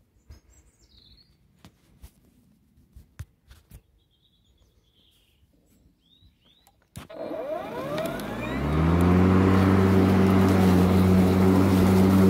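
A few small clicks and bird chirps. About seven seconds in, the EGO LM19 cordless lawn mower's electric motor and blade start, spinning up with a rising whine, then run steadily with a loud hum.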